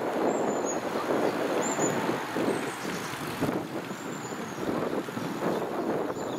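Riding noise of a bicycle moving along a tarmac path: a steady rushing noise with no pauses, and short high chirps three times.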